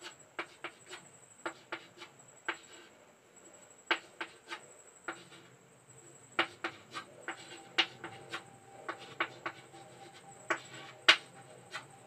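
Writing by hand: an irregular run of short taps and scratchy strokes of a pen drawing on a writing surface. A faint steady high-pitched whine runs underneath.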